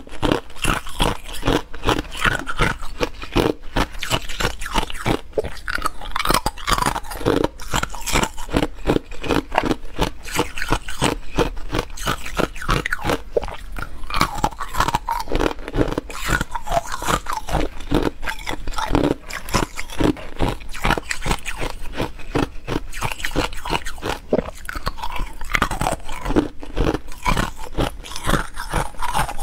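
Ice cubes being bitten and chewed, a dense, unbroken run of sharp crunches.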